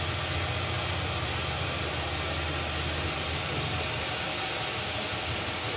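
Steady low hum with a constant hiss over it, unchanging throughout.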